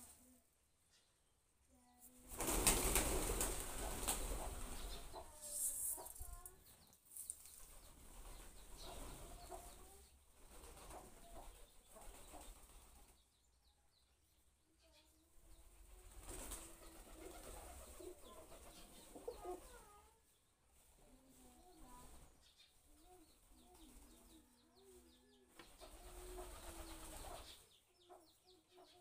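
A flock of feral rock pigeons: low wavering coos, clearest in the second half, over repeated flurries of flapping wings. The loudest flurry comes about two seconds in and lasts a few seconds.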